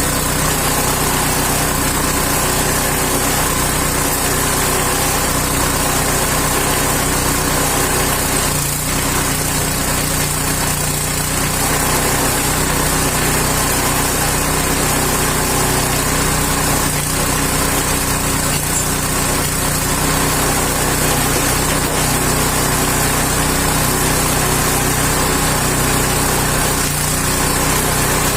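Small engine driving a coconut dehusking machine, running at a steady speed.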